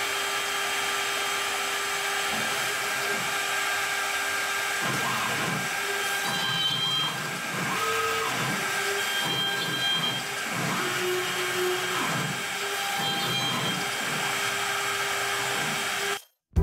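CNC router spindle running with a steady high whine as a 1/4-inch end mill plunges into and clears pockets in red cedar. From about five seconds in, uneven chattering cutting noise comes and goes as the bit bites into the wood.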